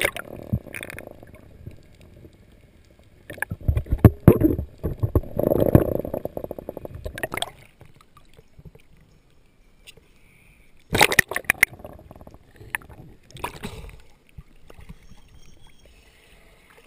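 Water splashing and sloshing around a camera at the surface as it dips in and out of the sea. The splashing comes in irregular bursts, from about 3 to 7 seconds in and again around 11 and 13 seconds in, with quieter lapping between.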